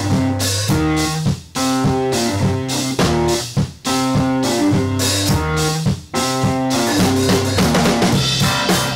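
Outro music: guitar over a rock drum kit, at full level.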